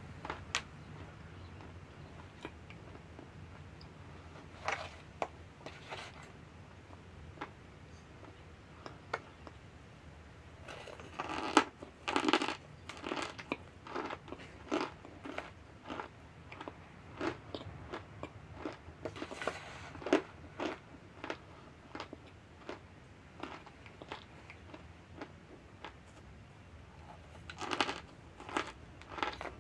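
A person chewing mouthfuls of raw cornstarch: irregular crisp crunches, coming in denser runs a few times, over a faint low steady hum.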